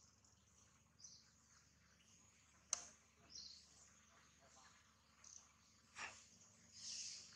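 Near silence: faint outdoor ambience with brief high-pitched chirping or rustling bursts, and one sharp click about a third of the way in.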